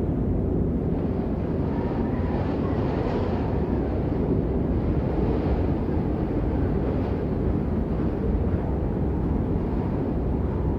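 Blizzard wind blowing hard: a steady deep rush with gusts swelling and easing every couple of seconds.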